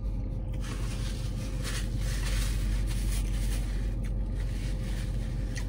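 Paper being handled in the hands, a soft crinkling and rustling, over a steady low hum in the car cabin.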